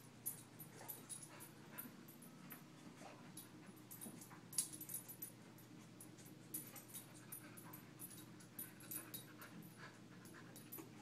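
Beagle panting softly as it moves about searching for treats, with faint scattered clicks and rustles and one sharper click about four and a half seconds in.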